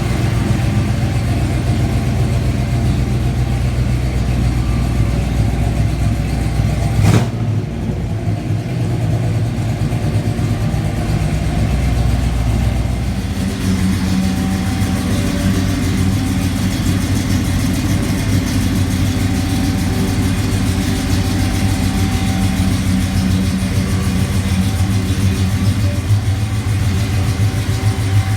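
A car engine running, mostly idling with some revving. The sound changes abruptly about a quarter of the way in and again about halfway through.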